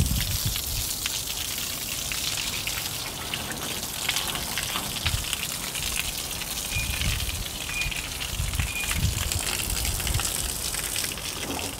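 Water from a garden hose spraying onto a car's bodywork: a steady hiss of water hitting the metal and glass as the car is washed.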